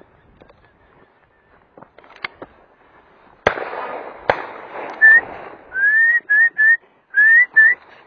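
Two shotgun shots from an over-under shotgun, under a second apart, about three and a half seconds in. They are followed by six short, rising whistled notes, loud and close.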